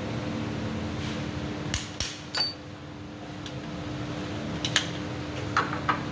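A few short, sharp metal clinks and clicks, in small clusters, over a steady background hum.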